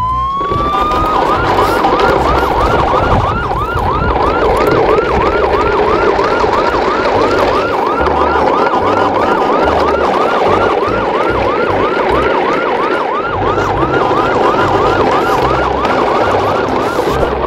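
Siren: one rising wail at the start, then a fast yelp of repeated upward sweeps, about three a second, over a steady rushing noise.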